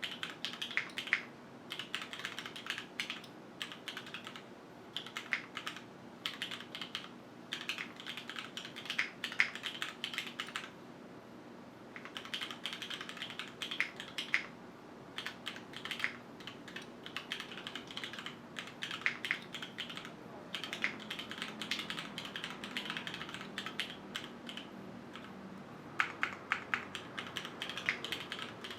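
Typing on a QwertyKeys Neo 65 mechanical keyboard with Cherry HyperGlide Black linear switches, an aluminium plate and no foam: runs of quick keystroke clacks broken by short pauses, the longest about eleven seconds in.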